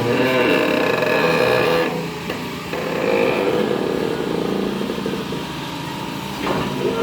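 Excavator working with its engine running and a strange high squeal over it, strongest for the first two seconds and returning briefly about three seconds in.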